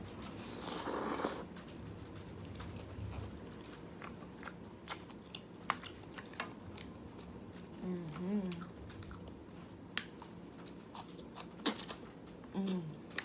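Close-up eating sounds of a person chewing black bean noodles: a short slurping rush about half a second in, then wet mouth clicks and smacks scattered throughout, with two brief hums, one past the middle and one near the end.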